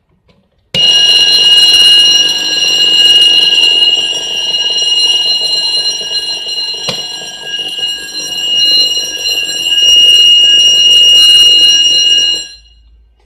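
Fire alarm driven by a Horing Lih AHC-871 control panel, sounding in a test: a loud, steady, high-pitched ring that starts abruptly about a second in and cuts off about twelve seconds later. A single click is heard about halfway through.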